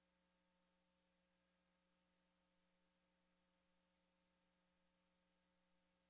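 Near silence: only a faint steady hum.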